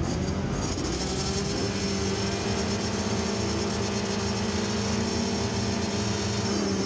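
Motocross bike engines, the rider's Honda CRF250R four-stroke 250 among them, held at steady high revs on the starting line while waiting for the gate to drop. Near the end the pitch starts to shift as the revs change.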